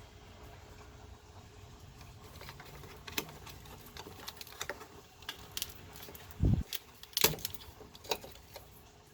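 Wiring connectors and harness clips being worked loose by hand: a scattering of sharp light clicks and rattles starting about three seconds in, with a dull thump about six and a half seconds in and the loudest click just after.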